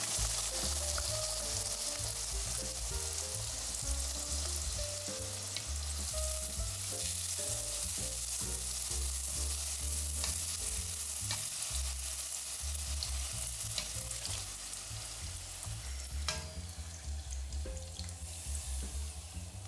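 Flour dough frying in oil in a pan: a steady sizzle with a few light clicks of a utensil, easing off somewhat near the end. Soft background music with a bass line runs underneath.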